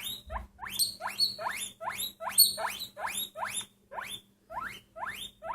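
A small pet animal squeaking in a quick run of short rising squeaks, about three to four a second. Higher, sharper squeaks come in over them from about one to three seconds in.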